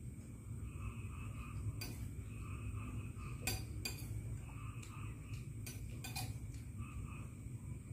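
Metal spoon and fork clinking and scraping against a ceramic plate while eating: scattered sharp clinks, the loudest cluster about three and a half seconds in.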